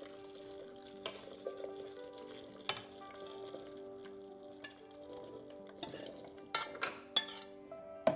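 A metal ladle scraping and clinking against a pan as hot soup is ladled and poured into a blender jar, with a cluster of sharper clinks near the end.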